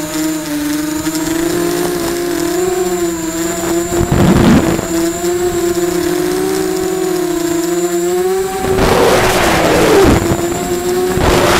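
QAV250 miniquad's brushless motors and propellers whining steadily, the pitch wavering slightly with throttle, picked up by its onboard camera. Short bursts of rushing air noise come about four seconds in and again near the end.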